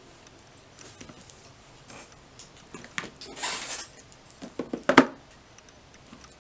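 Small plastic toy figures being handled: light clicks and taps as a figure is set down on a plastic toy vanity and another is picked up, with a brief rustle about three seconds in and a sharp knock about five seconds in.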